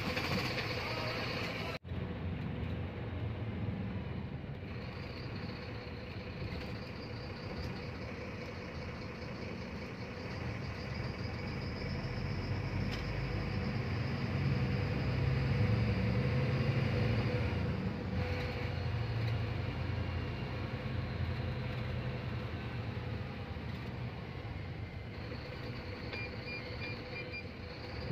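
BharatBenz 1624 bus engine and road noise heard from inside the front cabin while driving, a steady running hum with a held tone. It grows louder and heavier for several seconds around the middle, then settles back.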